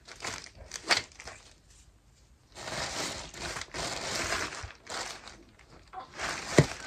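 Packaging crinkling and rustling in irregular bursts as clothes are handled, with a sharp click near the end.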